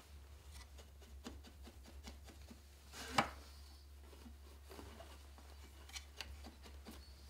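Soft rubbing and light clicks of yarn and fingers on taut cotton warp threads and the wooden frame of a small frame loom as weft is threaded by hand, with one louder knock about three seconds in, over a low steady hum.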